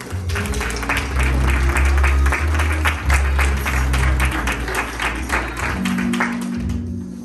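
Audience applauding over background music. The clapping dies away about six seconds in, leaving the music.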